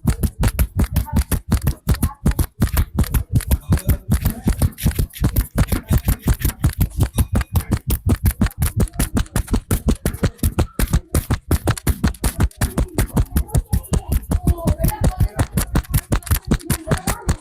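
A masseur's hands drumming a fast, even rhythm of slaps on a client in percussive tapping massage, about six or seven strikes a second with a dull thud to each.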